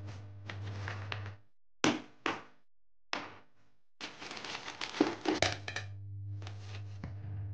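Kitchen handling noises: objects set down and moved with knocks and clatter, some crinkling, and a low hum under parts of it. Near the middle there is a near-silent stretch broken by a few sharp knocks.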